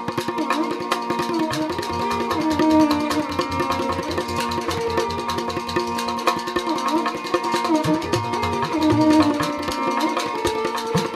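Instrumental background music in a traditional style: a steady drone, a melody line that bends up and down, and fast, dense drum strokes.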